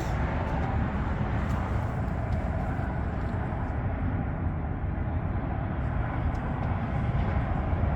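Steady low rumble of outdoor background noise, even throughout, with no distinct knocks or tool sounds.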